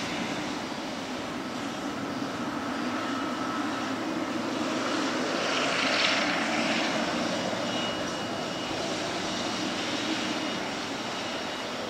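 Boeing 777 freighter's twin jet engines running as it rolls out on the runway after landing: a steady jet rumble that swells to its loudest about six seconds in as the aircraft passes, then eases off.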